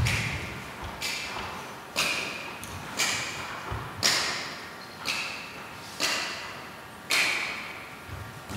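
Sharp percussive hits, like claps or knocks, at a steady pace of about one a second, each ringing out in the long echo of a large, bare hall.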